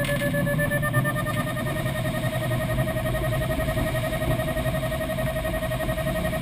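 Single Astir 77 glider on a winch launch: air rushing past the cockpit through the steep climb, with a steady tone that creeps slightly higher in pitch.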